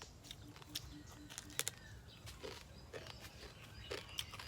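Quiet, irregular crunches of someone chewing crispy deep-fried stone crab, shell and all. Near the start, a faint run of about six short, evenly spaced low calls from an animal in the background.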